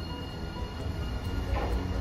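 Hiroshima Electric Railway 3900-series articulated tram pulling away from a stop: a steady low running rumble of the motors and steel wheels on the rails. Two brief clatters come near the end.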